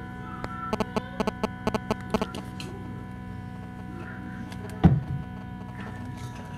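Steady hum of an egg incubator's motor, with a quick run of sharp clicks in the first two seconds and one louder knock about five seconds in.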